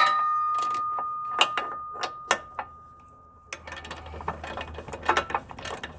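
A metal clank at the start from the socket wrench on a front subframe bolt, leaving a ringing tone that fades over about three and a half seconds. Then quick ratchet clicking as the big bolt is worked loose.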